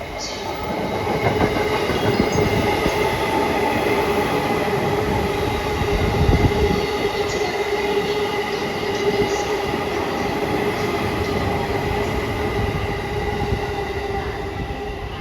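JR East 255 series electric multiple unit passing through a station without stopping: a continuous rumble of wheels on rail with steady whining tones held throughout, fading a little near the end.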